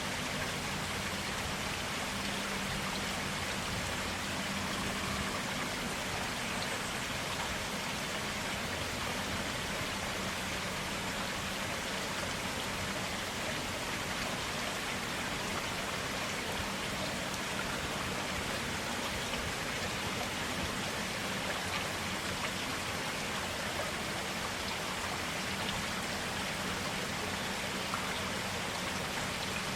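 Clear running water, a steady, even rush with no breaks or changes.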